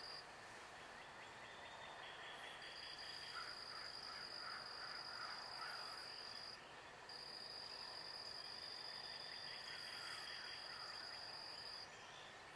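Faint evening chorus of singing insects: a steady high-pitched buzz that stops and starts again every four to five seconds, over a softer, lower trill and a few scattered chirps.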